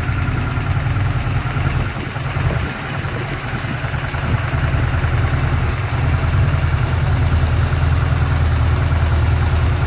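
Lotus Super Seven's 2-litre Ford overhead-cam four-cylinder engine idling, with a fast, even ticking over the engine note: the ticking noise the owner reports, whose cause is being sought.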